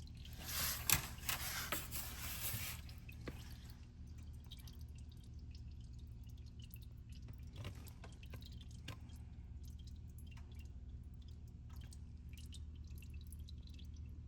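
Engine oil dripping from the car's underside in scattered drips, over a steady low hum. A brief burst of noisy clatter comes about half a second in and lasts a couple of seconds.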